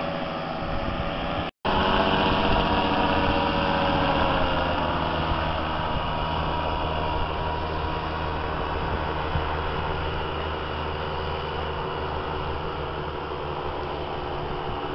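Paramotor engine running steadily, with a brief cut in the sound about one and a half seconds in and a slight drop in pitch a few seconds later.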